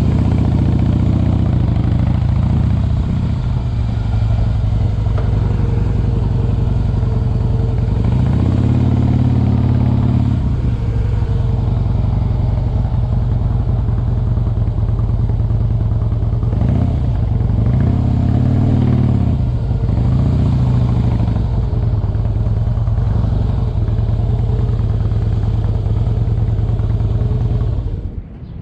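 Motorcycle engine running while riding, its pitch rising and falling a few times as it pulls away and changes speed. The sound cuts off suddenly near the end.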